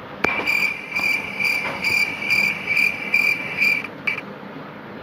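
Cricket chirping played as a comedy sound effect, the stock 'awkward silence' crickets: a steady, evenly pulsed high chirp that stops about four seconds in.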